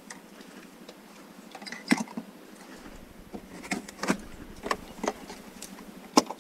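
Plastic interior trim pieces being handled and unclipped: scattered sharp clicks and knocks, about seven in all, the loudest about two seconds in and near the end.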